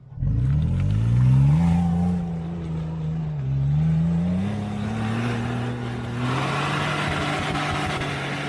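Off-road 4x4's engine revving hard under load as it climbs a trail obstacle. The pitch rises sharply at the start, holds high with a short dip, and a rushing noise joins about six seconds in.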